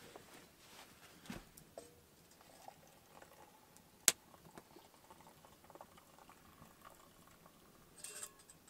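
Faint sound of just-boiled water being poured from a stainless steel pot into a mug. A single sharp click comes about four seconds in.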